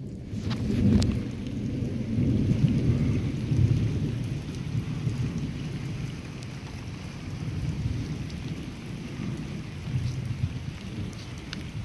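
Thunder rumbling low and continuously, loudest in the first four seconds, with steady rain falling.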